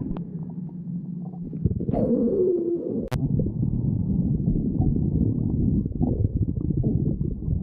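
A person's stomach growling: a falling, squealing gurgle about two seconds in, then continuous low rumbling with rapid gurgles. A single sharp click just after three seconds.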